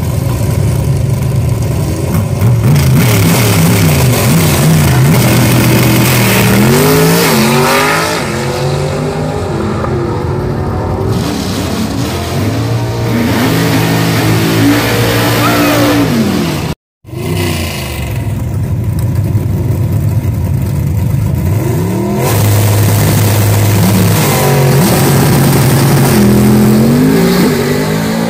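Drag race cars at full throttle down the strip, the engine pitch climbing and dropping back several times as gears are shifted. There is a brief dropout partway through, then another run with the same climbing and shifting.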